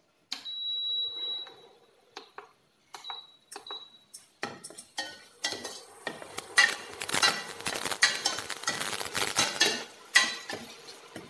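A spoon stirring and scraping chopped tomatoes and onion in a stainless steel pot, clinking against the pot's sides. A single ringing clink comes first, then scattered taps, then steady vigorous scraping and clatter from about five seconds in until near the end.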